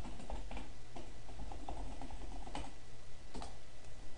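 Computer keyboard keys being typed, sharp irregular clicks a few a second, over a low steady hum.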